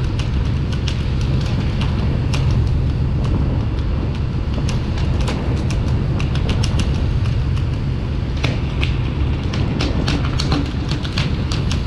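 Steady low rumble of a fishing boat under way, with water rushing along the hull. Many sharp knocks and slaps are scattered throughout, from tuna hitting and flapping on the wooden deck.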